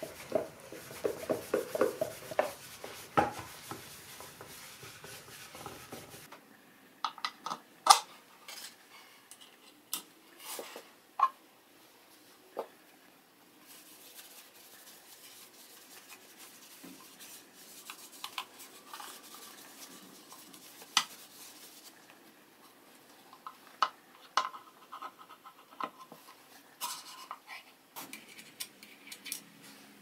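Cloth rubbing oil finish over a wooden box for the first few seconds, then scattered light knocks and clicks as the wooden boxes are handled, set down and stacked on a metal pin.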